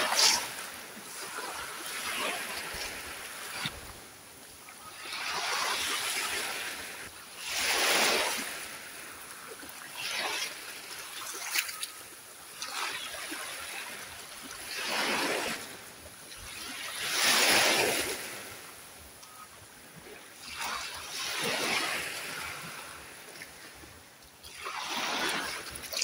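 Small sea waves breaking and washing up a sand and shell beach among rocks: a rush of surf and fizzing foam every two to four seconds, some swells louder than others.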